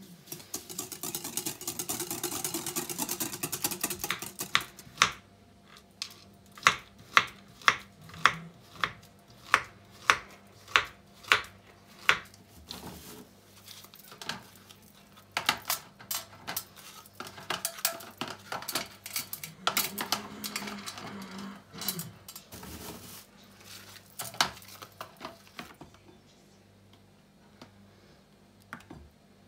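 A whisk beating sour cream and sugar in a glass bowl, a fast clattering scrape for about four seconds. Then comes a run of sharp, evenly spaced taps, and later scattered clicks and scrapes as biscuits are laid into a metal baking tin and cream is spooned over them.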